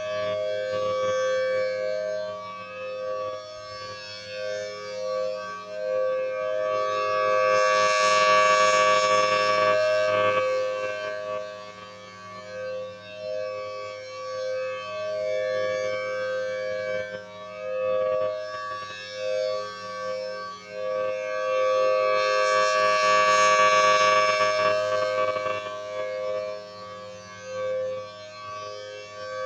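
Federal Signal Thunderbolt 1000T rotating outdoor warning siren sounding a steady two-note wail for a test. It swells loudest twice, about fourteen seconds apart, as the turning horn sweeps past, and fades between sweeps.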